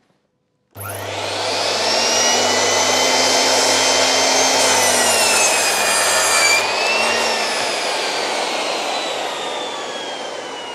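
Miter saw motor switched on about a second in, whining up to speed, then cutting through a pine plank around the middle, the cut adding a harsher, noisier sound and briefly pulling the whine down. After the cut the motor is released and the blade coasts down with a slowly falling whine.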